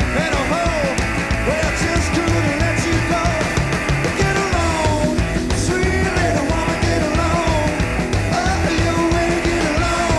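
Live rockabilly band playing: hollow-body electric guitar over upright bass and drums, with a steady pulsing beat.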